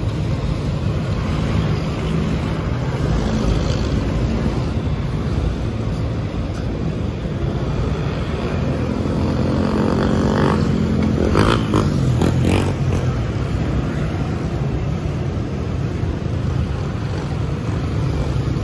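Steady road traffic, cars and motorcycles going by, with one engine passing closer about ten seconds in, followed by a few short knocks.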